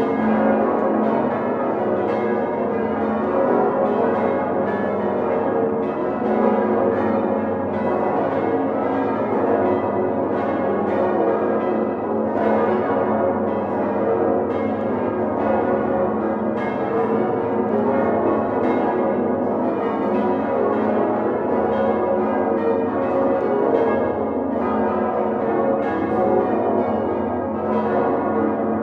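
Full peal of the Domtoren's great swinging church bells, all bells hand-rung together, heard from inside the bell chamber. Many overlapping strikes over a continuous ringing, steady in loudness throughout.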